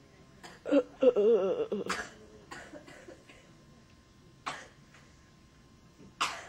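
A young woman coughing in fits: a loud cluster of coughs about a second in, with a wavering voiced sound in it, then single coughs around two and a half, four and a half and six seconds in.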